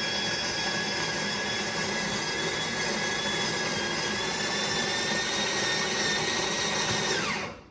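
De'Longhi La Specialista espresso machine's built-in burr grinder running steadily as it grinds coffee into the portafilter, a motor whine over the grinding noise. Near the end the motor winds down, its pitch falling, and stops.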